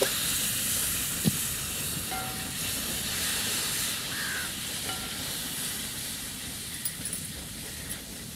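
Hot oil sizzling in a cooking pan, a steady hiss that slowly dies down, with one sharp knock about a second in.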